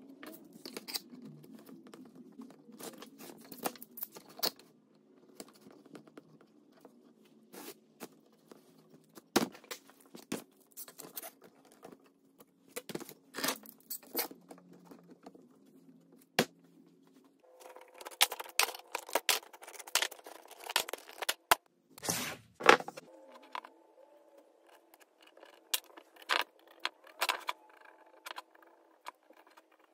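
Bar clamps clicking and clattering as they are set and tightened around a glued stack of wooden blocks: many scattered sharp clicks and knocks, the loudest about two-thirds of the way through.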